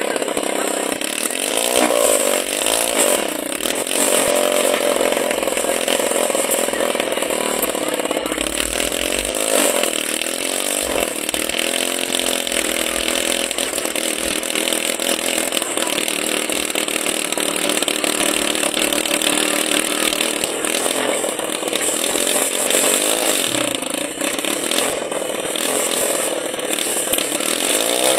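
Small engine of a homemade helicopter rig running hard, its pitch rising and falling repeatedly as the revs change.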